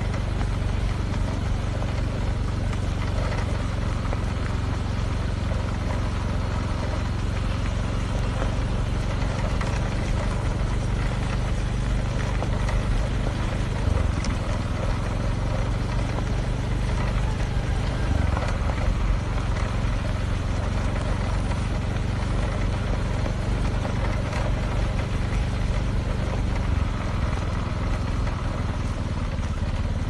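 Engine of a slow-moving vehicle running steadily, a low hum under a steady rush of road and wind noise.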